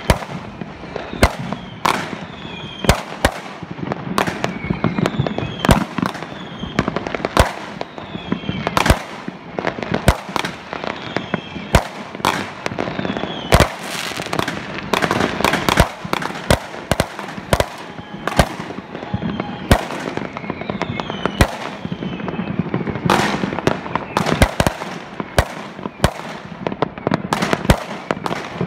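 Fireworks going off without pause: many sharp bangs from bursting rockets and aerial shells over a continuous crackle.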